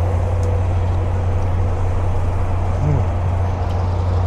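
Steady low hum of an idling engine under an even wash of noise, with a few faint clicks.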